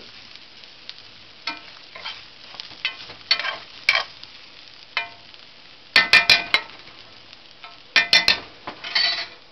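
Metal spoon stirring rice in a cast-iron skillet, scraping and clinking against the pan over a low sizzle. The scrapes are irregular, with two louder bursts of scraping and knocking about six and eight seconds in.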